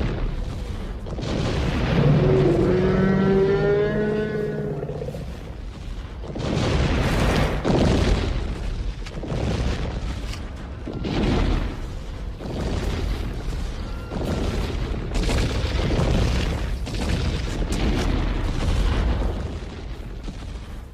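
Brachiosaurus creature sound effects: a run of deep, rumbling dinosaur calls, each swelling and fading, one after another. One call a couple of seconds in has a clear pitch that rises.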